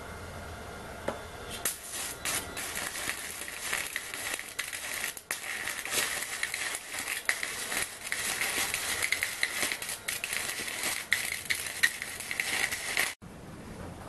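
Stick (MMA) welding arc crackling as a square steel tube is welded to a steel plate with a coated electrode. The arc strikes about a second and a half in, runs with an irregular stream of pops, and breaks off abruptly near the end.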